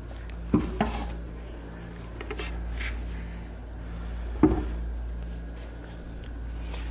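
A few light knocks from wood being handled, two close together near the start and a sharper one past the middle, over a steady low hum.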